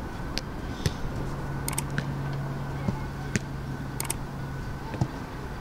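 A football being juggled and kicked on artificial turf: a few sharp, separate taps of foot on ball, a second or so apart. A quick double mouse-click from the subscribe-button animation comes about four seconds in, and a steady low hum runs through the middle.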